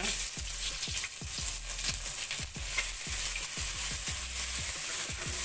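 Crushed ginger-garlic, cumin and dried red chillies sizzling in hot oil in an aluminium pan, stirred with a wooden spatula that scrapes and knocks against the pan about three or four times a second over a steady sizzle.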